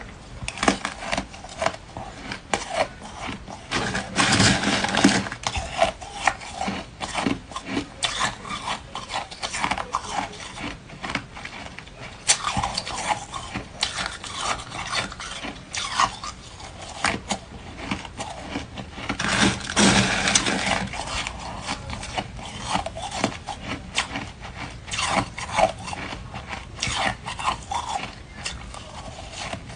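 A person chewing and crunching ice close to the microphone: a dense run of cracks and crackles, with heavier crunching bouts about every eight seconds.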